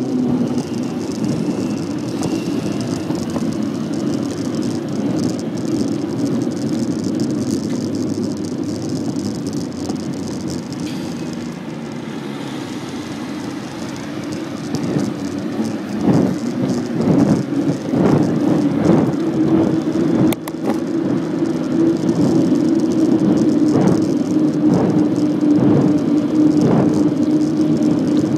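Bicycle rolling along a paved road: a steady hum of tyres and wind on the microphone, with repeated rattles and knocks in the second half.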